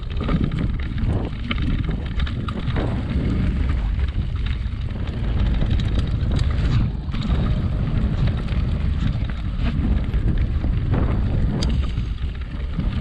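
Mountain bike rolling down a dirt singletrack, wind rumbling over the camera microphone, with tyres and bike rattling and clicking over the bumps and leaves.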